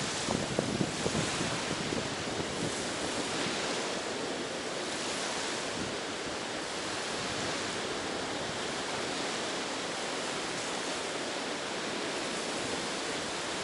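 Ocean surf washing onto the shore, a steady rush, with a few crackles in the first second or so. Wind on the microphone.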